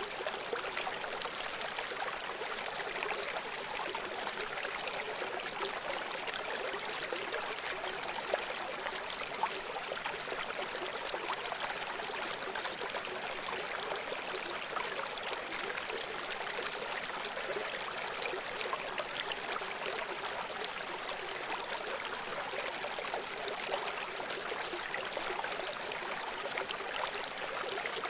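A running stream: water flowing and babbling steadily over stones, an even rushing wash with fine splashy detail and no pauses.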